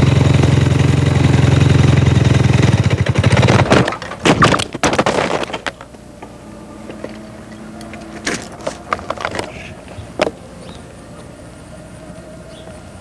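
Motorcycle engine running steadily, then about four seconds in a burst of loud clattering knocks and scrapes, after which the engine sound drops away to a faint steady hum broken by a few single knocks.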